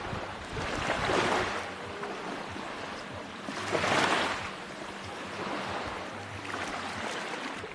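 Ocean waves washing onto a beach, with two surges of surf: one about a second in and a larger one about four seconds in.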